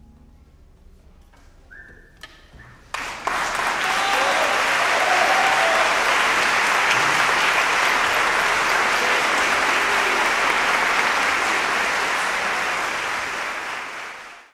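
Audience applauding a concert: a quiet pause of about three seconds, then applause breaks out suddenly, dense and steady, and fades out near the end.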